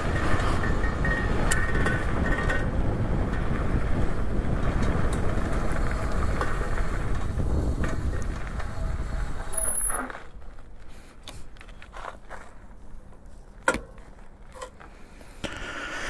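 Windone K20 electric bike being ridden: a steady noisy rush of wind and tyres, with the loose front fender rattling from vibration. About ten seconds in it gets much quieter, with a sharp click a few seconds later.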